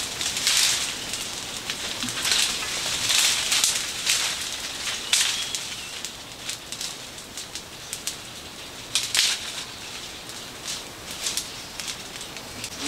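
Fire burning through the dry fronds and fibre wrapped around a palm trunk: surges of rushing, crackling flame, loudest in the first few seconds, then settling to a lower crackle with scattered sharp pops. The dry material is being burnt off so that the palm can be cut.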